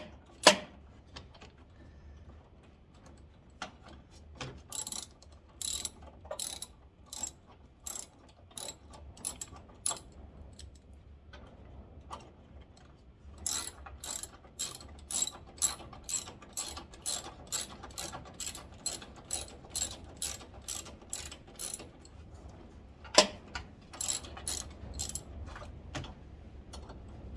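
A hand ratchet clicking in runs as screws are driven back in, with a couple of louder knocks. Wind rumbles on the microphone underneath.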